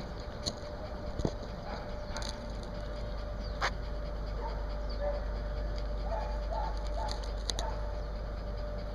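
Small dog panting, with a few short barks about six to seven and a half seconds in.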